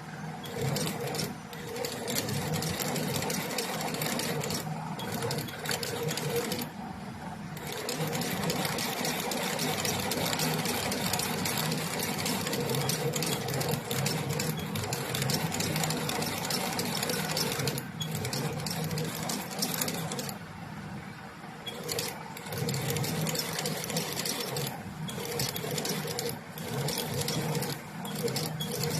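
Sewing machine stitching sandal pieces in runs of rapid, even stitching, stopping briefly several times between runs.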